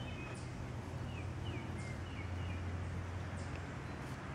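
Outdoor ambience: a steady low rumble with faint, short bird chirps and thin high calls repeating every second or so.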